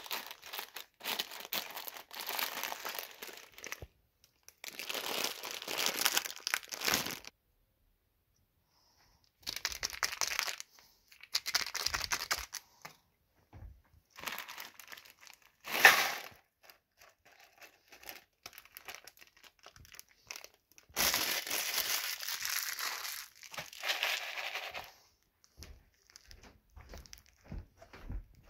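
Plastic Top Ramen instant-noodle packet crinkling in repeated bursts as the dry noodles are crushed inside it, the bag torn open and the broken noodles emptied into a plastic container. There is one sharp, louder crackle just past halfway and a long rustle near the end.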